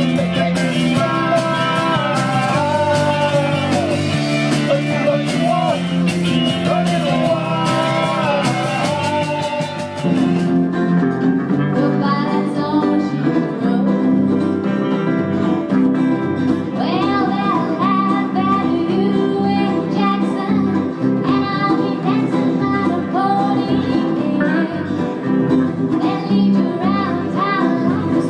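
Live band music: a singer over guitar and band accompaniment. About ten seconds in, the bright, hissing top end drops away and the music changes in character, with the vocal line continuing.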